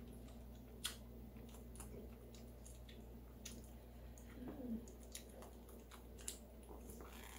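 A Nigerian Dwarf goat kid sucking and smacking at a baby-bottle nipple, heard as faint, irregular wet clicks.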